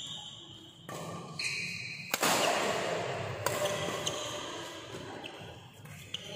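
Badminton rally: rackets striking the shuttlecock with several sharp cracks about a second apart, and court shoes squeaking briefly on the floor.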